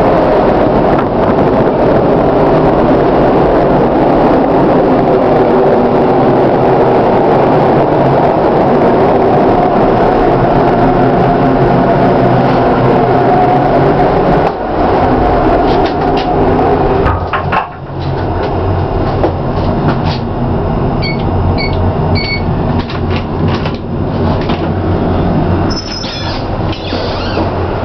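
Steady, loud rush of wind and ship noise on a container ship's open deck. Partway through a door shuts it out, leaving a lower, steady machinery hum inside the accommodation with scattered knocks and three short high beeps.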